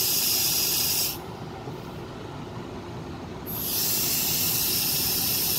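Pressurized nitrogen hissing out through a hose adapter on an EZ Tee fitting as the ball valve is opened, blasting sludge and water out of a clogged air-conditioner condensate drain line. The hiss cuts off about a second in and starts again about three and a half seconds in.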